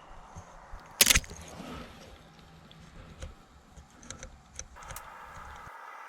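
Canon AE-1 35mm SLR firing its shutter: one loud, sharp clack about a second in, followed by a few light clicks of handling the camera.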